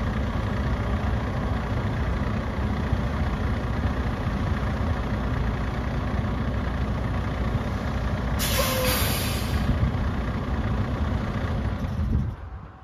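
Diesel engine of a 2016 Freightliner SD122 quad-axle dump truck running steadily. About eight seconds in there is a short hiss of air from the air brakes. The sound fades out just before the end.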